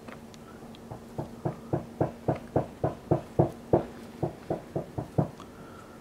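A rapid, even series of about fifteen sharp knocks, three to four a second, lasting about four seconds, over a faint steady hum.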